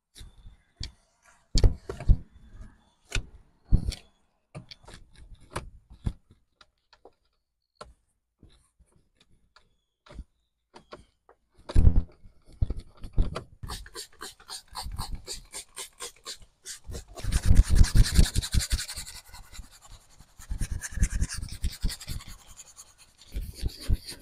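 A detailing brush and a microfiber towel working on a car's interior plastic trim. There are scattered short taps and rubs at first, then fast back-and-forth scrubbing strokes through the second half, the loudest run in the middle of that half.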